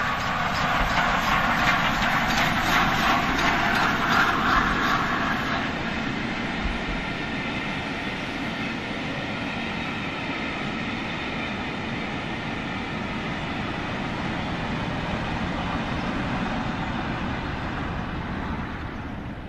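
Gresley A4 Pacific steam locomotive passing at speed with its train of coaches. A rapid, even beat is loudest for the first several seconds, then the coaches' wheels run on the rails with a steady rolling noise that eases a little near the end.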